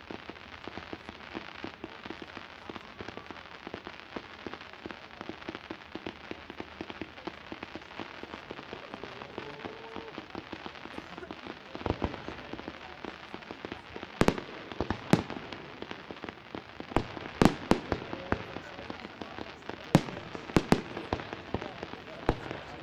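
Fireworks: a dense, continuous crackling, then from about fourteen seconds in roughly ten sharp, loud bangs of aerial shells bursting.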